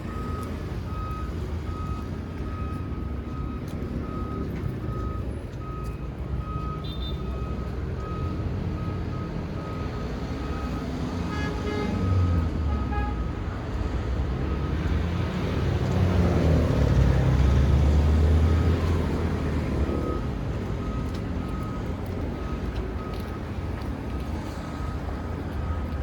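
Street traffic rumbling steadily, with a vehicle's reversing alarm beeping at an even pace throughout; a vehicle passes about halfway through and a louder one a little later.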